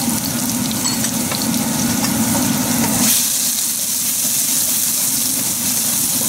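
Whole cumin seeds and chopped soaked red chilies sizzling in hot oil in a wok, blooming to flavour the oil. About three seconds in, a wooden spatula starts stirring them and the sizzle turns louder and brighter.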